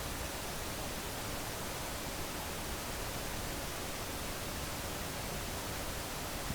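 Hair dryer blowing steadily, a constant even rush of air with no change in pitch.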